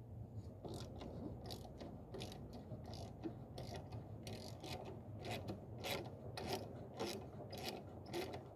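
Ratchet wrench clicking in short runs, with some metal scraping, as fasteners are worked on a Honda lawn mower engine's muffler heat shield.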